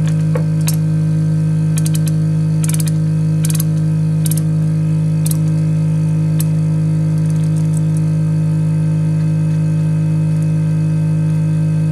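Ratcheting wrench clicking in short bursts as the nut on a battery's positive terminal is loosened, over a steady, loud low hum.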